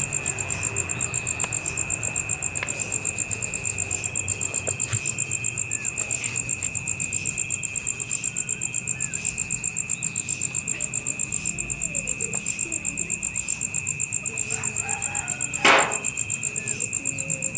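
Insects trilling in a steady chorus, a rapid even pulsing at two high pitches. There are faint scattered chirps throughout, and a brief louder sound near the end.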